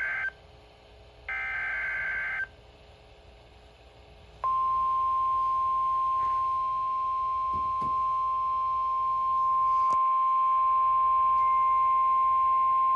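Emergency Alert System tornado warning signal. It opens with the tail of the digital header's harsh data bursts: one ends just as it starts and a second lasts about a second. After a short pause comes a single steady high alert tone, the National Weather Service warning alarm, held for about nine seconds before the spoken warning.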